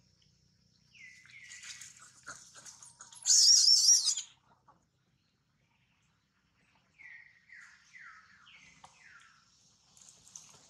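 High-pitched animal calls: a few chirps, then a loud, wavering shriek lasting about a second. After a pause come five short chirps, each sliding downward in pitch, evenly spaced.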